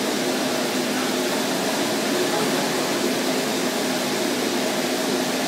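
Steady whir of bicycle racing rollers spinning under a rider's wheels, with people talking in the background.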